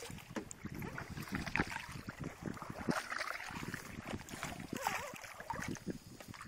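Wooden double-bladed kayak paddle dipping into calm river water, stroke after stroke, with a splash about every one and a half to two seconds and water dripping off the blades in between.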